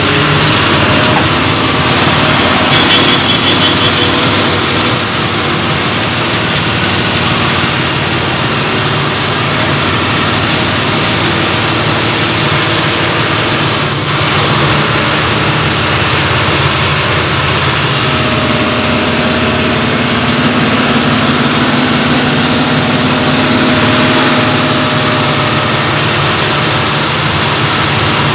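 A vehicle's engine running under way, with steady road and wind noise, heard from inside the cab.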